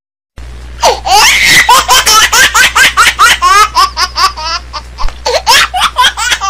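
High-pitched laughter: a fast run of short 'ha-ha' bursts, about five a second, starting about a third of a second in over a low steady hum.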